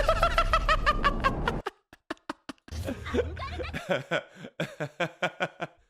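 A voice held briefly over a low rumble, then laughter in a run of short bursts.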